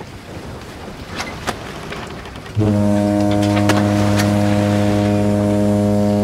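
A boat's horn sounds one long, steady low blast, starting abruptly about two and a half seconds in and drowning out the quieter outdoor background.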